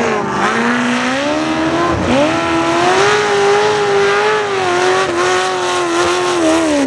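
Formula Offroad buggy engine revving hard at high rpm under full load. The pitch dips about two seconds in, climbs and holds high, then drops near the end.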